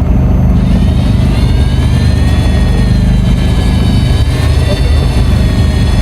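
An engine running steadily: a loud low rumble with a high whine that drifts slowly up and down.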